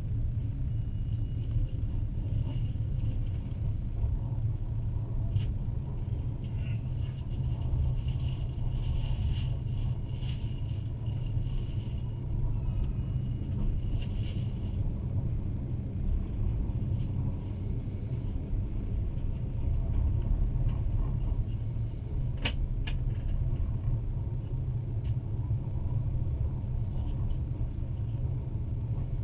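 Passenger train running: a steady low rumble of wheels on rails heard from inside the carriage. A faint high squeal comes and goes through the first half, and a few sharp clicks stand out, the loudest about 22 seconds in.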